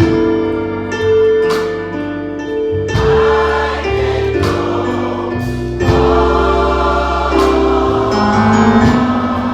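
Church choir singing a gospel song in sustained chords, with keyboard and bass accompaniment.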